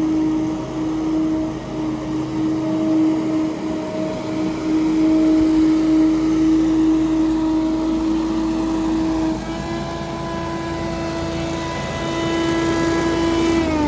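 Billy Goat Hurricane stand-on leaf blower running steadily at high speed, its engine and fan holding one constant tone. Right at the end the pitch starts to drop as it throttles down.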